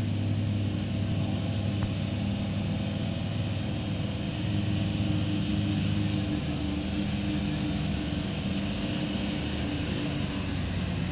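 Isuzu KB 250 X-Rider's engine running steadily at low revs under heavy load as it pulls a trailer and a towed Toyota bakkie through deep sand, a constant low drone with no revving.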